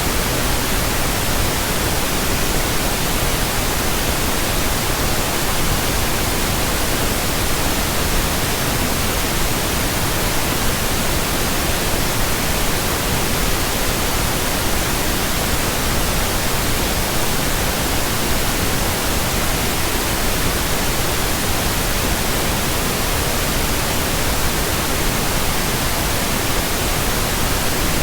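Steady pink noise: an even, unbroken hiss across the whole range, at a constant level.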